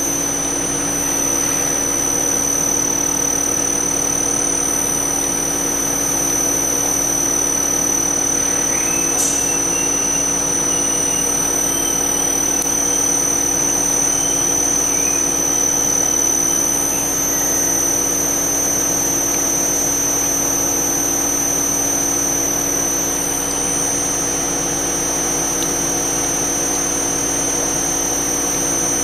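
Diamond America TF200 twin-feed extruder running steadily as its twin screws draw chunks of silicone into the feed section. The machine's drive gives a constant hum under a steady high whine. About nine seconds in, a faint squeal rises and holds for a few seconds.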